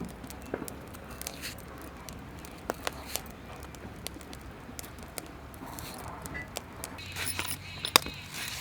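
Scattered light clicks and knocks of kitchen utensils being handled, with a sharper knock near the end.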